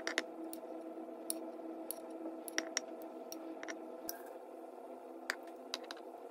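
Scattered light clicks and taps of a metal spoon against a glass dish and pomegranate seeds while juice is poured, over a steady low hum.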